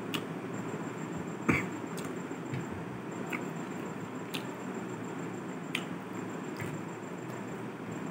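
Fingers mixing and picking up rice and chicken curry on a steel plate, giving scattered short clicks and taps against the metal, the loudest about a second and a half in, over a steady low background hum.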